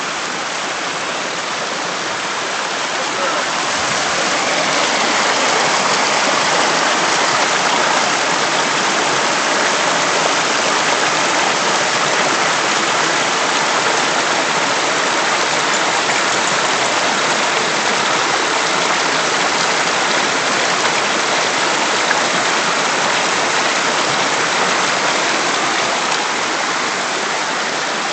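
Shallow rocky creek rushing over stones, a steady wash of flowing water that grows a little louder about four seconds in.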